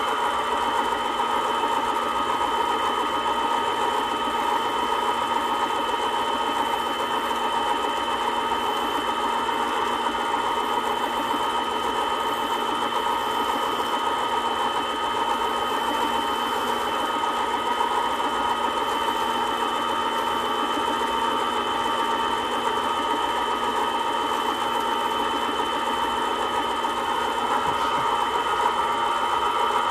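Small bench lathe motor spinning a ring on a mandrel, running steadily at constant speed with an even hum and a high whine.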